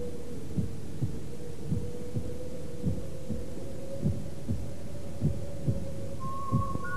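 Opening title music: a steady low drone with soft thudding pulses like a heartbeat, and a whistled melody that enters about six seconds in.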